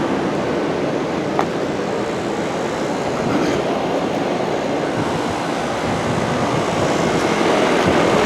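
Outdoor heat pump condenser unit running steadily, its fan and compressor going. There is a short click about a second and a half in.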